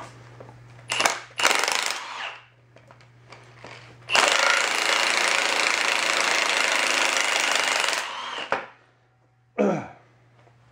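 Cordless impact wrench hammering on the floor jack's frame bolts to break them loose and back them out. Two short bursts come about a second in, then one long run of about four seconds, then a short final burst near the end.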